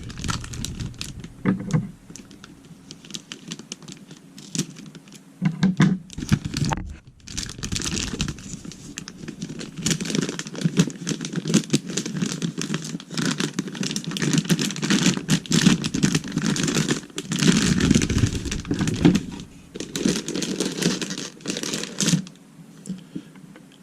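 Motherboard packaging being handled: plastic bag and cardboard rustling and crinkling, with many small clicks and knocks, as the board is taken out of its box.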